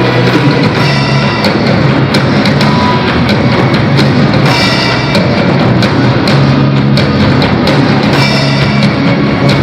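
A school rock band playing during a sound check: a drum kit keeping a steady beat over sustained bass notes.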